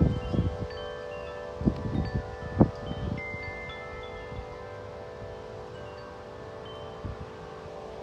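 Several large tubular wind chimes struck by gusts of wind: a handful of strikes in the first three seconds, then long overlapping ringing tones that slowly fade. Wind rushes on the microphone while the strikes come.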